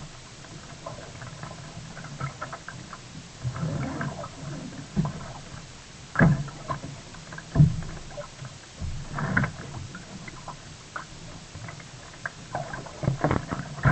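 Sea kayak being paddled: irregular splashes and gurgles of the paddle blades in the water, every second or two, over a low steady rumble.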